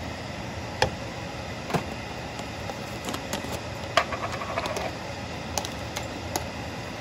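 Plastic spatula stirring vegetables in a nonstick frying pan: scattered sharp clicks and taps of the spatula on the pan, the loudest about four seconds in, over a steady hiss.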